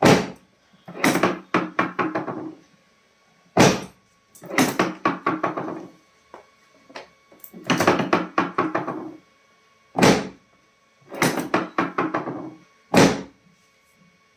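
Repeated knocking: a single sharp knock, then a quick run of knocks lasting about a second and a half, the pattern coming round about every three to four seconds.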